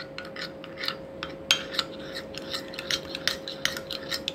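A metal spoon stirring a thin flour-and-water slurry in a glass bowl, clinking and scraping against the glass in quick irregular taps, over a faint steady hum.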